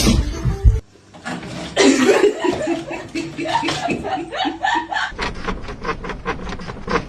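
A person laughing in a run of short, rhythmic chuckles, starting about two seconds in.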